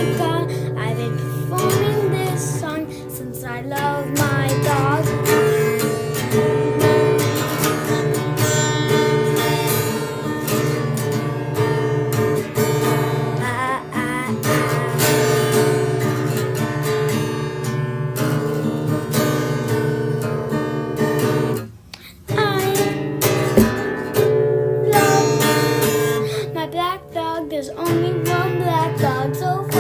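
Music: strummed acoustic guitar with a singing voice, briefly dropping out about three-quarters of the way through.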